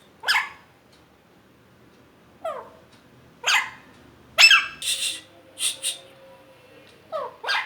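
Pet parrot calling: about eight short squawks with gaps between them, several sliding down in pitch, some harsh and screechy.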